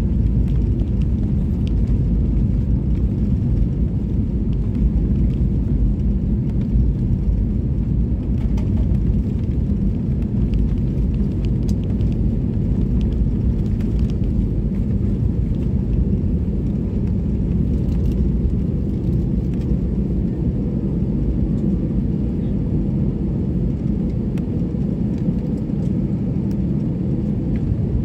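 Airliner cabin noise during landing: a steady, loud low rumble that eases slightly toward the end.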